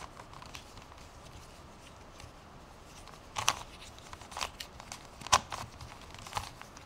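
Plastic Fisher cube, a shape-mod 3x3 puzzle, being twisted by hand: about four short, sharp clacks of its layers turning in the second half, the loudest a little past the middle.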